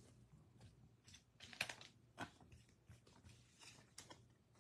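Faint, scattered clicks and rustles of trading cards and a foil card pack being handled.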